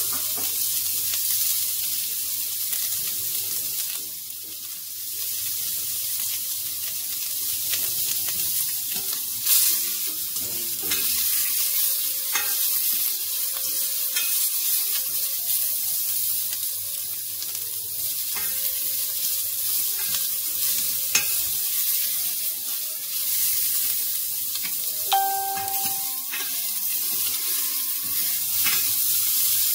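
Sliced wild boar sausages sizzling as they fry in a hot stainless steel pot, a steady high hiss, while a spatula stirs them, with scattered light knocks and scrapes against the pot.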